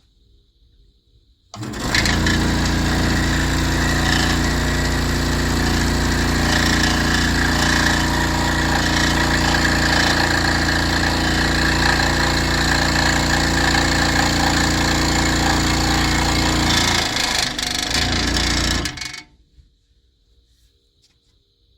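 Charnwood SS18F 18-inch scroll saw with its 120-watt motor, the blade reciprocating rapidly. It starts suddenly about a second and a half in, runs steadily, and stops about three seconds before the end.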